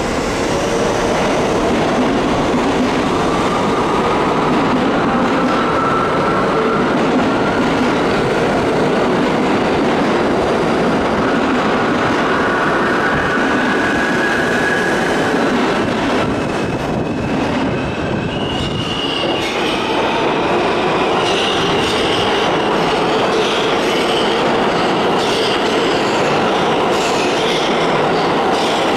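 Subway trains in an underground station: a continuous loud rumble with wheel and rail noise. In the last third, an R160 subway train pulls out, its electric traction motors giving a rising whine as it gathers speed, with wheel squeal and clickety-clack.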